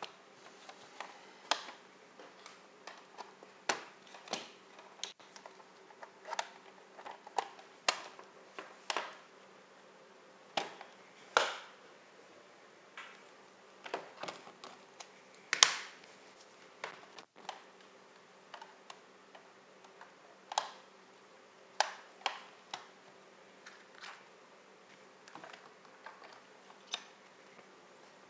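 Irregular light clicks and taps, one to three a second and uneven in loudness, over a faint steady hum.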